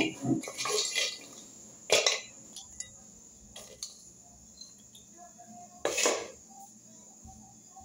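Wooden spoon scraping and knocking against an aluminium pot as food is spooned out onto a plate: scraping in the first second, then separate sharp knocks about two seconds and six seconds in, with a smaller one between.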